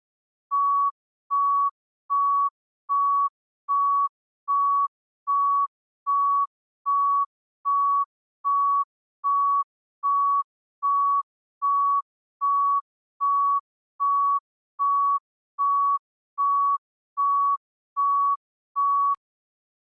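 Heart rate monitor beeping steadily: about 24 short single-pitch beeps, a little under one a second, like a regular pulse of around 75 beats a minute. The beeps stop abruptly near the end.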